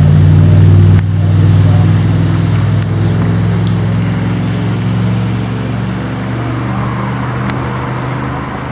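Steady low engine drone, a little quieter about a second in and then slowly fading.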